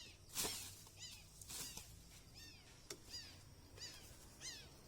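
A bird calling over and over: short, downward-sweeping chirps roughly every two-thirds of a second. Two brief rushes of hiss, one about half a second in and one at about one and a half seconds, come between them.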